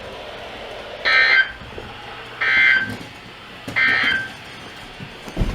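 EAS end-of-message signal on NOAA Weather Radio: three short, buzzy bursts of SAME digital data tones, about 1.3 s apart, over a faint steady hum, marking the end of a severe thunderstorm warning. A low thump near the end.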